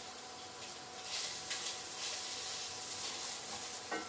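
Soya chunks, onion and carrot sizzling in hot oil in a pan, a steady hiss that grows a little louder about a second in.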